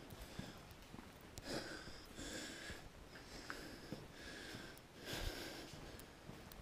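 Faint breathing and sniffing of a person close to the microphone: a run of short, hissy breaths, about one a second.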